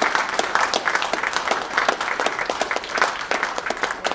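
Audience applauding, many hands clapping steadily, thinning out near the end.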